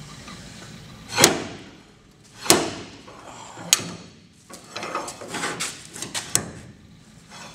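Steel slide hammer hooked onto a 1957 Chevy Bel Air's sheet-metal body being worked: the weight slams against its stop three times, about a second and a quarter apart, each a sharp clank with a brief ring, followed by a run of lighter knocks. It is pulling out a tweaked spot so the firewall lines up with the floor pan.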